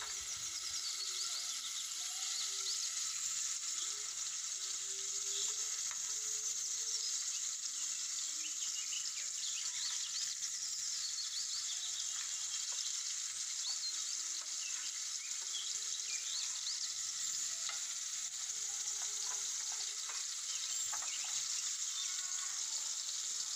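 Marinated fish pieces shallow-frying in hot oil in a pan: a steady sizzle with scattered small crackles.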